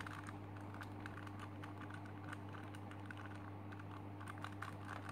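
Plastic pieces of a Super Square One (SSQ-1) puzzle clicking as its layers are turned by hand, a run of small irregular clicks over a steady low hum.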